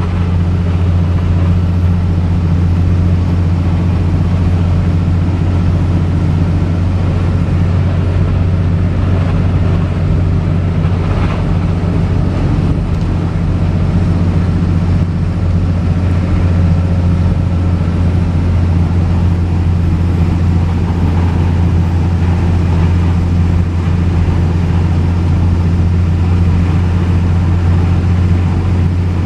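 Inside the cab of a 2005 Ford F650 driving at a steady speed: the 5.9-litre Cummins inline-six turbo diesel gives a steady, loud low drone, with road and tyre noise over it.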